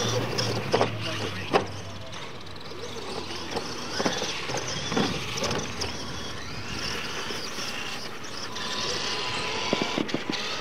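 Radio-controlled monster trucks racing on dirt, their motors whining up and down in pitch, with several sharp knocks as the trucks hit the ground and the ramps.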